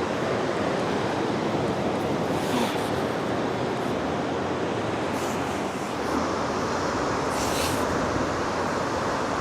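Steady ocean surf and wind noise on the microphone, with two brief higher hissing swishes.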